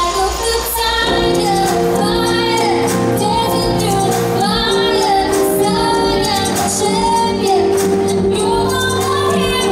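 Latin dance music with a woman singing a held, wavering melody over steady accompaniment.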